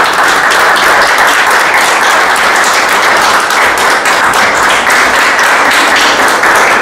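Audience applauding loudly and steadily, a dense crackle of many hands clapping.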